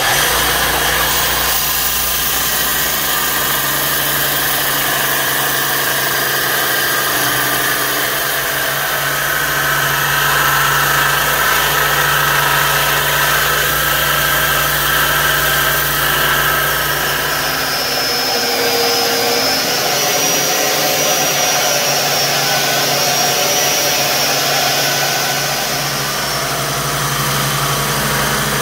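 Belt grinder running steadily, its motor humming under the hiss of saw-blade steel being ground against the abrasive belt. A thin high whine rises over the grinding through the middle stretch.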